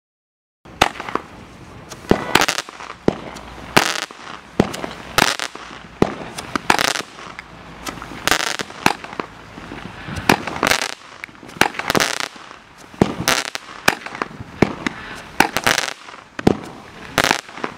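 Dominator DM-L912 Thunderstorm 16-shot fireworks cake firing: shots launch from its tubes trailing tails and burst in the air. It starts about half a second in and gives a sharp bang every second or so, some in quick pairs.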